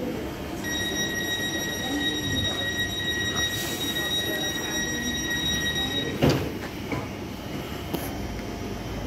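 Door-closing warning on a Greater Anglia class 321 electric train: one steady high tone for about five and a half seconds, then the sliding doors shut with a loud thud, followed by two lighter knocks.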